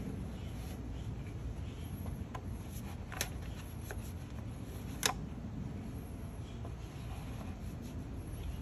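Faint rubbing and scraping of a rag being worked down into an engine's spark plug well with a hand tool, wiping out oil. There are a few light clicks of the tool against the metal, the sharpest about five seconds in, over a steady low background rumble.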